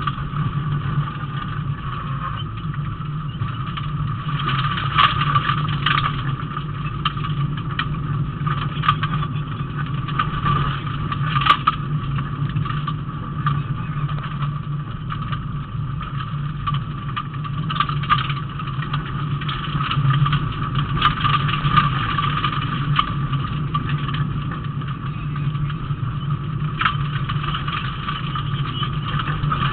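Rally car engine running at speed, heard from inside the cabin, with steady tyre and road noise and scattered short knocks from the car's body.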